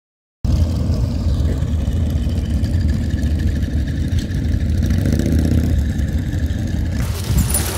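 Motorcycle engines running in a steady low rumble, starting abruptly about half a second in. Near the end a brighter, hissier background noise joins it.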